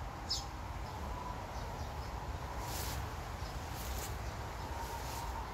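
Quiet outdoor background with a low steady rumble and a faint steady tone, broken about halfway through by two short rustles as the handheld camera moves in among the cherry leaves.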